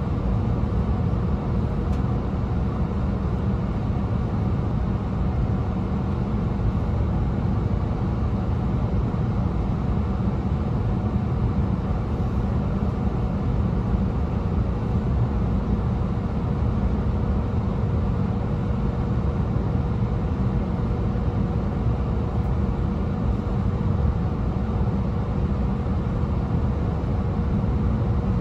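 Interior running noise of an E2 series Shinkansen car in motion: a steady, even low rumble with a thin steady hum in the middle register over it.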